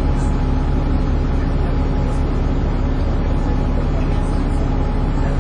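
Dennis Trident 2 double-decker bus running steadily under way, a constant engine drone with a faint steady whine over it: the vacuum-cleaner-like sound that bus enthusiasts call 'hoovering'.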